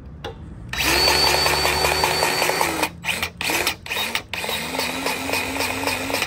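Cordless battery-powered grease gun pumping grease into a chassis grease fitting on a semi truck's rear suspension. Its motor runs for about two seconds with a slight pulsing, gives three short blips, then runs steadily again to the end.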